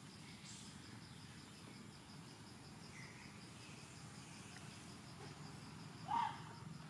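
Forest ambience with a steady, pulsing high insect trill and a few faint chirps. About six seconds in comes a single short, rising squeak from a baby macaque.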